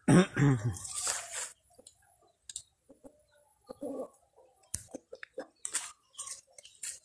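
Short low calls of farmyard birds, chickens and doves, with a brief loud call at the start. Scattered rustles and clicks of leaves are brushed in passing.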